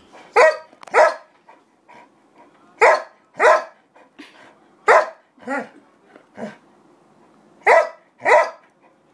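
A 15-year-old golden retriever barking repeatedly, mostly two barks at a time, about nine barks in all.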